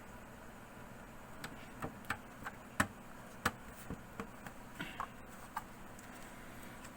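Irregular light clicks and taps of laptop parts being handled, about a dozen over four seconds.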